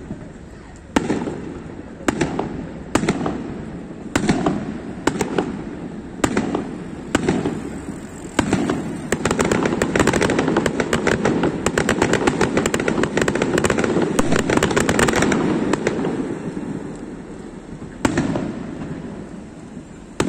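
Aerial firework shells bursting: sharp bangs about once a second, each trailing off in an echo, then a dense run of rapid overlapping bangs for several seconds, then two more single bangs near the end.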